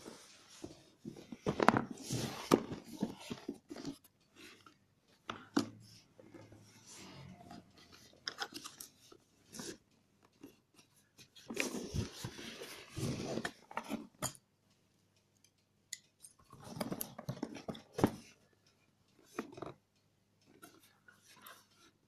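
Cardboard laptop box being handled and turned: bursts of scraping and crackling with sharp clicks, in several separate spells with quiet between.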